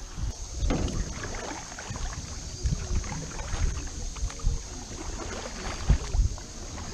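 Canoe paddles stroking through river water beside an aluminium canoe, with splashes and uneven low thumps, the loudest about six seconds in.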